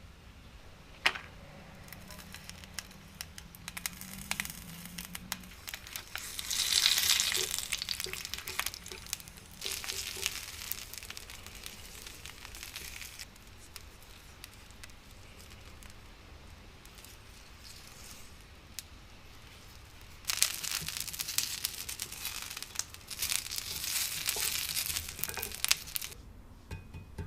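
Food sizzling in a hot takoyaki plate, in two louder spells with scattered sharp clicks and taps.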